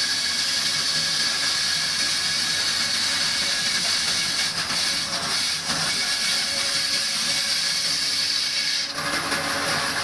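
Band saw cutting through a stack of corrugated cardboard air-cooler pads: a steady, high-pitched rushing noise. The tone of the cut changes about nine seconds in.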